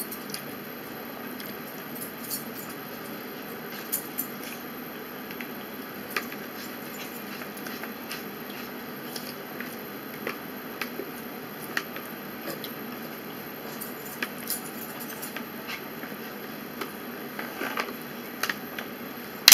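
Eating at a table: a metal fork clicking and scraping in a plastic takeout tray, with scattered small clinks and taps over a steady background hiss. A sharper click comes right at the end.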